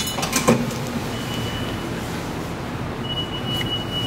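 Underground subway platform ambience: a steady low rumble with a thin high whine that comes and goes, and a couple of sharp clicks at the start.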